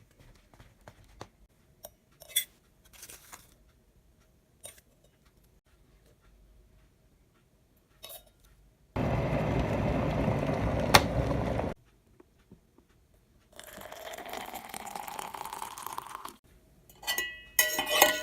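Dishes being handled: scattered light clicks and clinks, a loud steady rushing noise for about three seconds in the middle, then a quieter noise that rises in pitch. Ringing clinks of crockery and cutlery follow near the end.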